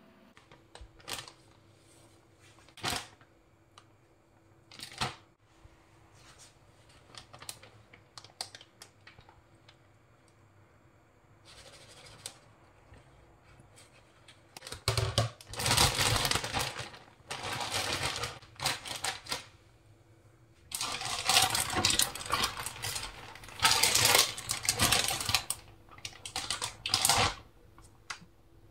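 A few faint taps of fish pieces against a glass bowl, then, about halfway through, a clear plastic zip-lock bag crinkling loudly in repeated bursts as the marinated fish pieces are put into it and it is handled.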